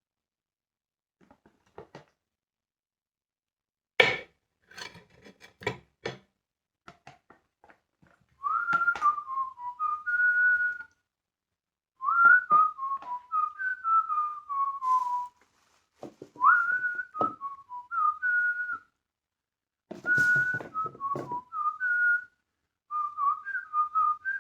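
A person whistling a tune in short melodic phrases with sliding notes, starting about eight seconds in. A few knocks and clicks come before the whistling, and a brief clatter about twenty seconds in.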